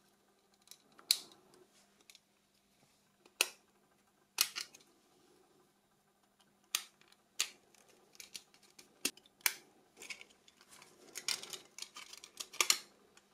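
Sharp, scattered clicks and snaps of small plastic and metal phone parts being handled and pried apart during disassembly, with a quick run of clicks near the end, over a faint steady hum.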